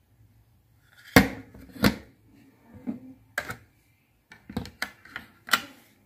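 Sharp plastic clicks and knocks from a small portable rechargeable fan being handled and turned over, about seven of them spread irregularly from about a second in, the loudest near the start and near the end. No fan hum is heard.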